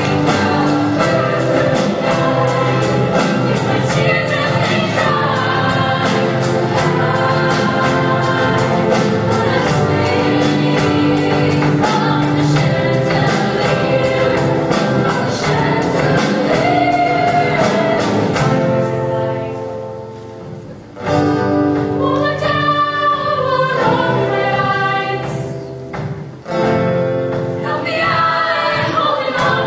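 Mixed-voice show choir singing in harmony over live band accompaniment with a steady beat. About two-thirds of the way through the beat drops out and the voices fade down twice briefly, each time coming straight back in.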